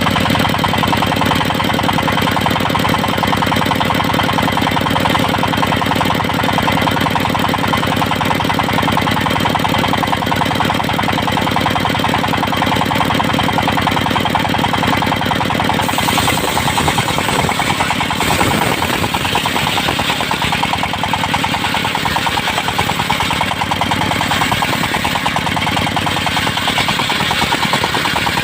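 Engine-driven circular sawmill running steadily with a fast, even engine beat. About halfway through the sound shifts, the low drone thinning and a higher hiss rising, as the saw takes up a new load.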